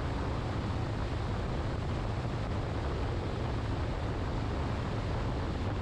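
Steady wind rush and low road rumble from a motorcycle cruising at highway speed, the wind buffeting the microphone.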